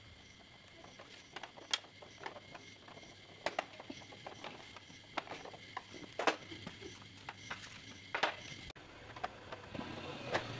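Scattered, irregular light clicks and knocks of tools and small metal parts being handled, a few to the second, some sharper than others.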